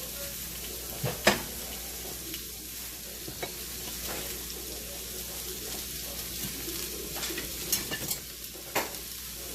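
Rough-chopped onion sizzling in hot avocado oil in a Dutch oven, as a steady frying hiss. A loud knock comes about a second in, and a few more sharp knocks come near the end.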